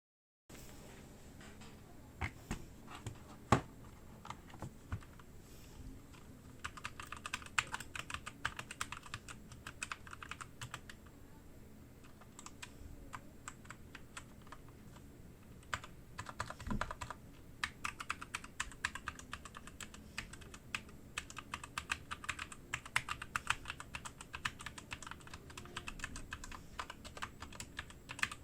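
Typing on a Redragon Deimos K599 mechanical keyboard: a few scattered keystrokes at first, then fast runs of key clacks with a lull in the middle. A few single keystrokes land harder and louder, the loudest about three seconds in.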